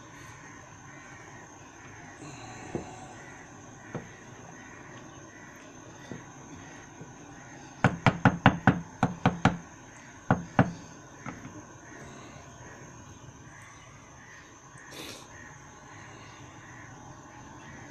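A quick run of about eight sharp knocks about halfway through, followed a second later by two more, over a faint steady background.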